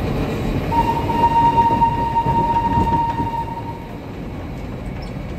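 Botchan Ressha, a diesel replica of a steam locomotive, sounds one steady whistle starting about a second in and lasting about three seconds, over the low rumble of the train.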